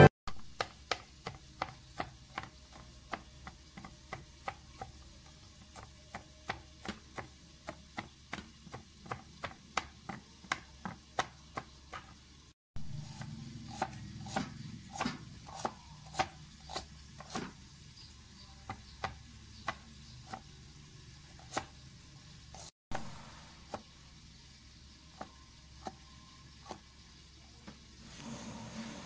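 Large kitchen knife chopping red onion on a cutting board: a steady run of sharp knocks of the blade on the board, about two to three a second, cutting out briefly twice.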